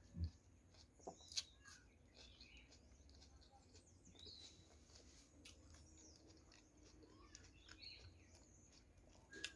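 Near silence: quiet room tone with a few faint soft clicks and scattered faint high chirps.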